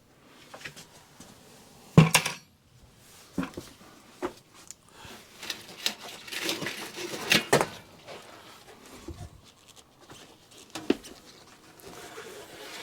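Sheet-metal furnace and flue parts being handled: scattered metal clanks and knocks with scraping between them, the loudest a sharp clank about two seconds in.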